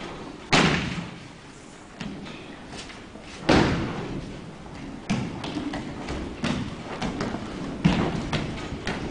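Aikido breakfalls on tatami mats: two heavy thuds about three seconds apart, the first about half a second in, with lighter thumps between and after them, each fading with a short echo.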